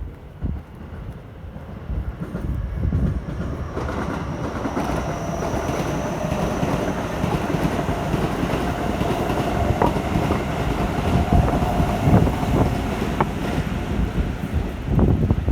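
An electric commuter train running past on the tracks, building up about two seconds in, with a steady whine and a few sharp clicks of the wheels. Wind buffets the microphone throughout.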